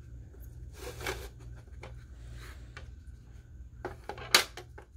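Dog working a treat puzzle box, with scraping and rattling of its sliding parts and scattered small clicks. One sharp knock about four seconds in.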